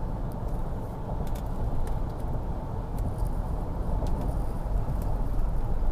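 Steady low engine and road rumble heard from inside a moving vehicle on the highway, with a few faint light ticks here and there.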